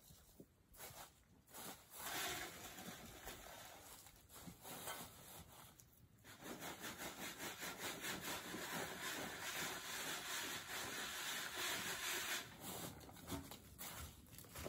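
Dirt scraped up with a shovel, then a wooden-framed sifting screen shaken for about six seconds from around six seconds in, soil and grit rasping through its mesh. Near the end come scattered footsteps in dry leaves.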